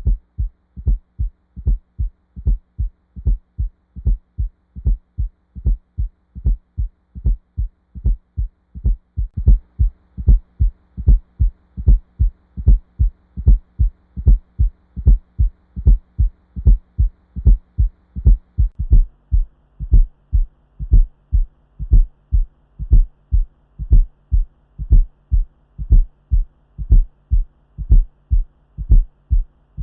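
Heart sounds heard through a stethoscope: a steady, repeating lub-dub with an extra soft beat, the fourth heart sound (S4 atrial gallop), just before each first sound. S4 is the sign of a stiff left ventricle, as from scarring after coronary disease or a wall thickened by hypertension or aortic stenosis. A faint steady hum runs underneath.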